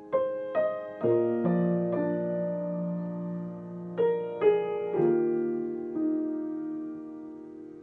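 Acoustic piano played with both hands in a slow passage: chords and melody notes struck about every half second in two short runs, near the start and again about four seconds in, each left to ring and fade away.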